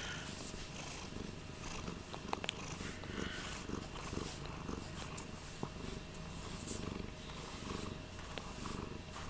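Domestic cat purring steadily at close range while being stroked.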